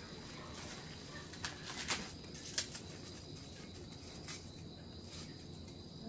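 Insects droning steadily on a high note, with several sharp clicks or knocks, the loudest about two and a half seconds in.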